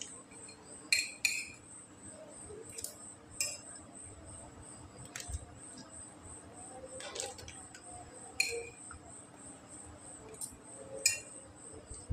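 A metal spoon clinking and scraping against a ceramic plate while eating rice, about nine sharp clinks spread irregularly, the loudest about a second in. A cricket chirps steadily in a fast, even pulse behind it.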